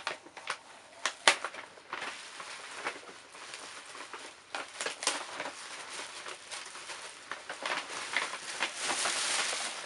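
A stiff shopping bag and clear plastic wrapping rustling and crinkling as a bag is pulled out and handled. There is a sharp crackle a little over a second in, and a denser, hissy rustle of the plastic near the end.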